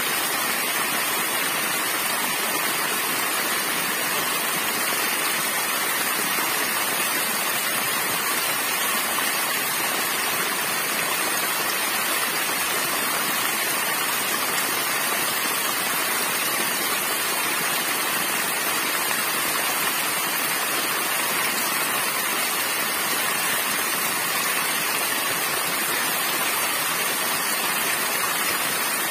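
Small waterfall: thin streams of water falling over a rocky bank and splashing onto rock and into white water below. A steady, hissing rush with little low rumble.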